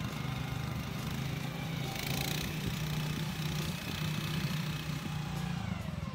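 Small gasoline engine of a stand-on spreader-sprayer running steadily as the machine drives across a lawn.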